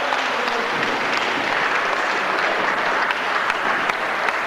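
Audience applauding steadily in a sports hall.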